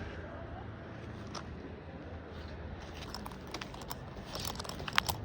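Footsteps on a hiking trail: scattered light clicks that get busier from about three seconds in, with one sharper click near the end.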